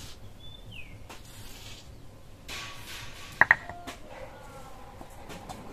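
Powdered sugar being scraped together by hand on a stone grinding slab, then two quick metallic clinks with a short ring about three and a half seconds in, from the steel mixing bowl being knocked. A faint falling bird whistle near the start.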